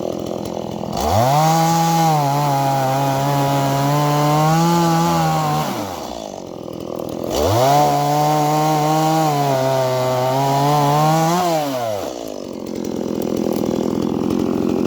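Chainsaw cutting firewood: the engine revs up to full throttle twice, each time holding high for about five seconds, and drops back to a rough idle between the cuts and after the second.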